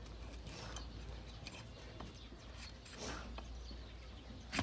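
Long-bladed hoof knife paring the hard horn of a donkey's hoof: a few faint scraping cuts, then a sharp click near the end.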